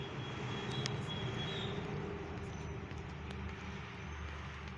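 Tractor diesel engines running under heavy load as the two tractors pull against each other, a steady low rumble with a few faint clicks.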